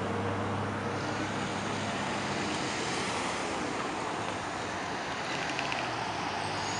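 Steady street traffic: several cars and a pickup truck passing close by at low speed, a continuous wash of engine and tyre noise.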